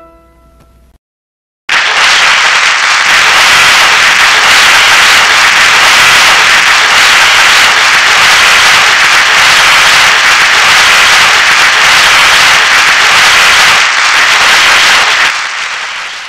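Audience applauding: a dense, loud burst of clapping starts suddenly about two seconds in, holds steady, and fades out near the end. Just before it, the last notes of a tune die away and there is a brief gap of silence.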